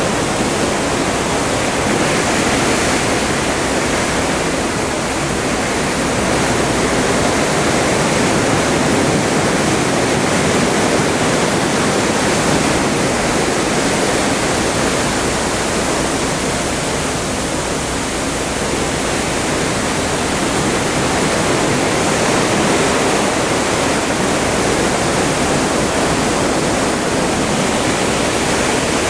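Atlantic seawater rushing and breaking along the hull of a moving cruise ship: a steady, dense hiss that swells and eases slightly.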